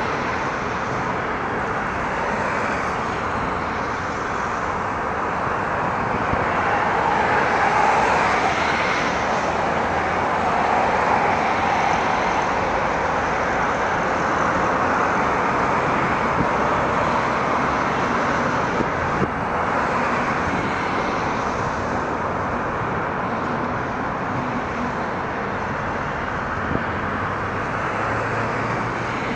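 Jet airliner's engines heard across the airfield: a steady, even jet noise that grows a little louder around eight seconds in and then settles.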